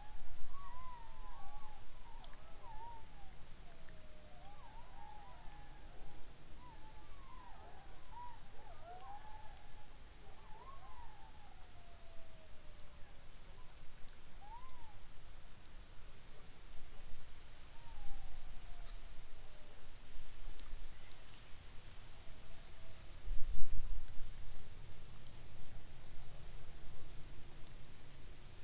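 A pack of golden jackals howling together, a chorus of overlapping wavering, yipping cries that dies away after about twelve seconds, leaving a few lone calls. Crickets keep up a steady high hiss, and a low thump stands out about three quarters of the way through.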